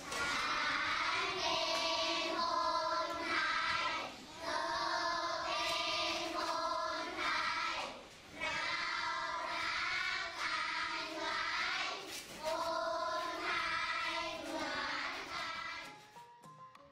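A group of children singing together, in phrases of about four seconds with short breaks between them; the singing fades out near the end.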